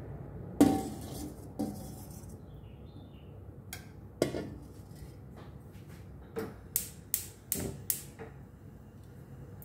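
Metal tongs clanking and clinking against a stainless-steel bowl and frying pan as pieces of marinated chicken are moved across. One loud knock comes about half a second in, a few scattered clinks follow, and a quick run of about six clinks comes in the second half.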